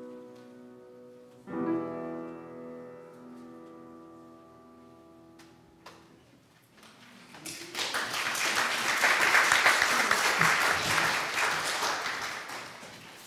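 The closing chord of an instrumental piece is struck a second time and rings out, fading. From about halfway through the congregation applauds, loudest in the middle and thinning toward the end.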